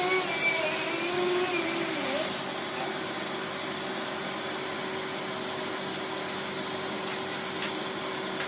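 A baby's faint, wavering vocalizing trails off in the first two seconds. After that only a steady mechanical hum with one constant tone remains.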